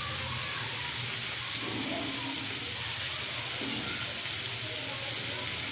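Marinated chicken pieces sizzling in hot oil in a frying pan: a steady, even high hiss.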